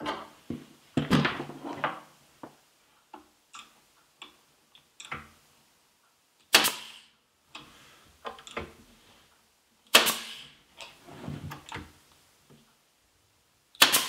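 Pneumatic nailer firing three nails, about three seconds apart, to fasten a thin wooden shim onto a cleat. Lighter clicks and knocks come between the shots.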